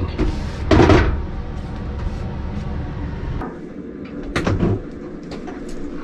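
Knocks and clunks from a tankless propane water heater's casing being handled and lifted off its wall mount. A steady low hum under it cuts off about three and a half seconds in.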